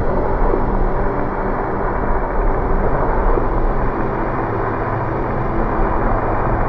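A loud, steady rushing rumble, with faint held music tones underneath; it sets in abruptly at the start.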